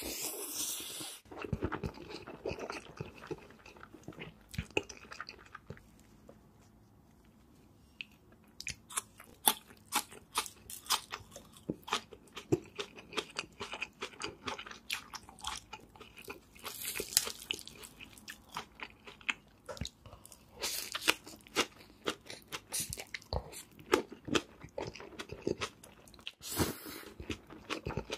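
A person eating noodles and food: a slurp of noodles at the start, then chewing and crunching with many sharp clicks. There is a short lull about a quarter of the way in, and two more loud hissing bursts, one about two-thirds through and one near the end.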